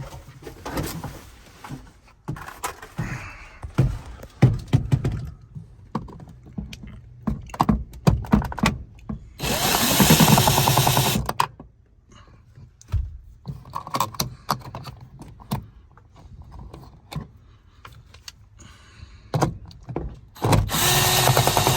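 Power drill running in two short spells of about two seconds each, one near the middle and one at the end, backing out the screws that hold an interior trim panel. Between the spells come scattered clicks and knocks of handling the parts and tools.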